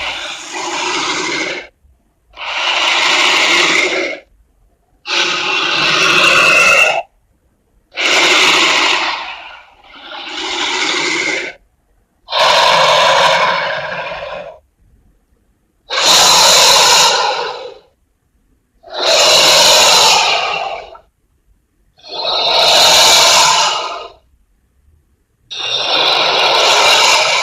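Creature sound effect for a titanoboa, a prehistoric giant snake: about ten long, rough calls, each lasting about two seconds, separated by short silences.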